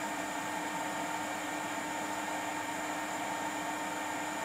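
Steady whooshing hiss with faint, even hum tones, like a small fan or blower running, with no distinct knocks or clicks.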